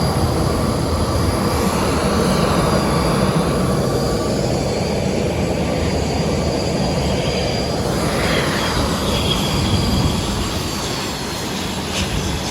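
Jet aircraft turbines running on the apron: a loud, steady rush with high, steady whining tones over a low rumble, with a brief swell about two-thirds of the way through before it eases slightly.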